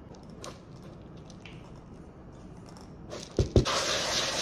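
Puffed rice being stirred with a spatula in a mixing bowl, coated in melted white chocolate. It is quiet at first, then about three seconds in come two knocks and a dense crunching rustle as the stirring starts.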